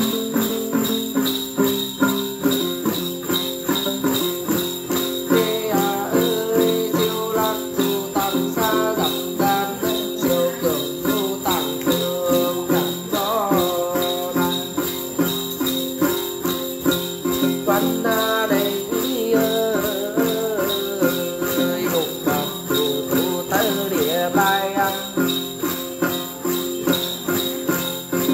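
Tày-Nùng Then ritual music: a cluster of small jingle bells shaken in a steady beat with a plucked đàn tính gourd lute, and a wavering sung melody over them through the middle.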